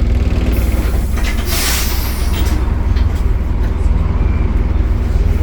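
Optare Solo bus engine running with a steady low drone. About half a second in, a hiss of compressed air from the bus's air system lasts about two seconds.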